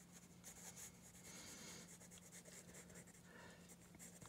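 Golden yellow colored pencil scratching faintly on sketchbook paper in short, light shading strokes, over a faint steady low hum.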